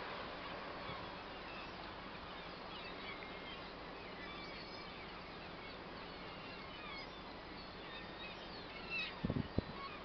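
A large flock of seagulls calling over the sea: many short, high, overlapping calls, distant, over steady waves and wind. A few low thumps near the end.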